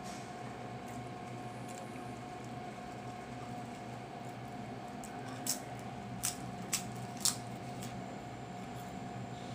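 Four short, crisp crunches of a cream wafer a little past halfway, over a steady background hum.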